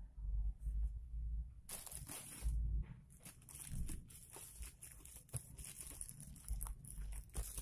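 Clear plastic bag wrapping a parcel crinkling and rustling as hands pull at it and its tying string, starting about two seconds in with a dense run of crackles, after a few low handling bumps.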